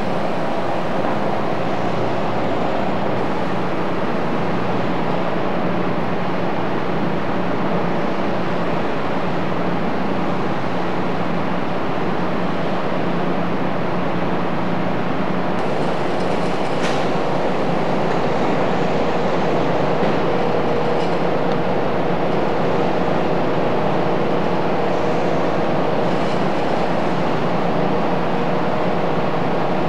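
Steady, loud mechanical drone with hiss, unchanging throughout, carrying a faint constant hum.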